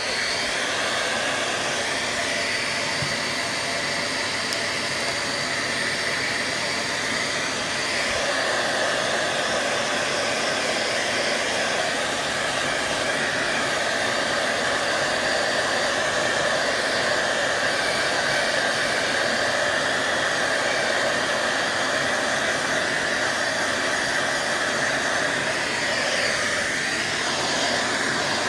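Handheld hair dryer switched on and blowing steadily, drying wet watercolour paint; its tone shifts slightly about eight seconds in.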